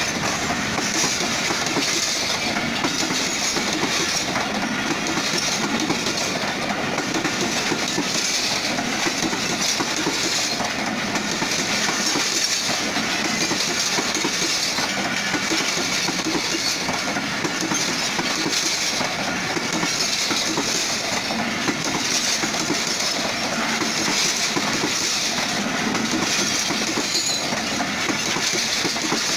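Passenger train coaches running past at speed close to the track: a steady loud rush of wheel-on-rail noise with a regular clickety-clack as the wheels cross the rail joints.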